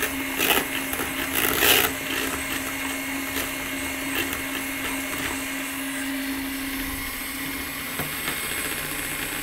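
A hand mixer over 40 years old, running steadily with its beaters whipping egg whites to stiff peaks in a bowl. The beaters knock against the bowl a few times in the first two seconds.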